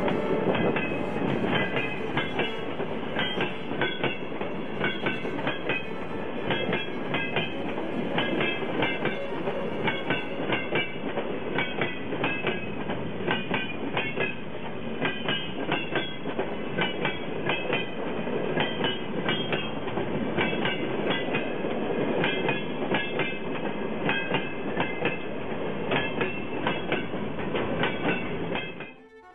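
Freight train's open wagons rolling past close by: a steady rumble with rapid clicks of wheels over the rail joints and short high metallic squeals now and then. It cuts off abruptly near the end.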